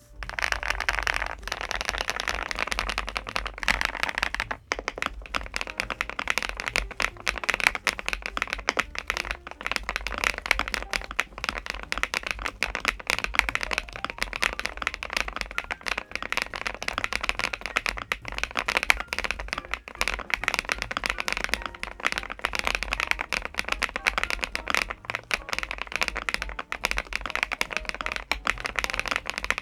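Continuous fast typing on a KiiBOOM Phantom81 Lite mechanical keyboard: a steady stream of muted keystroke clacks from its Mochi switches, in an ABS case with a PC plate and foam inside.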